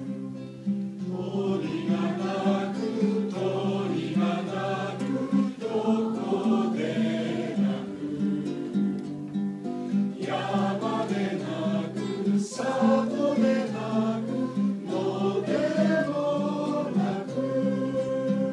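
Several voices singing a song together in unison, accompanied by a strummed acoustic guitar.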